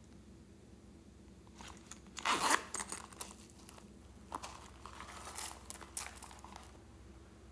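Small holographic plastic zip purse being handled: a loud zip and crinkling about two seconds in as it is opened, then scattered crinkles and clicks of the stiff shiny plastic as it is tipped over the bowl.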